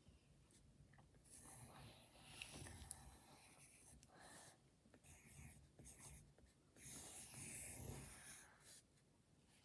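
Pencil scratching faintly on paper in a run of short, uneven strokes as circles are drawn, a little louder near the end.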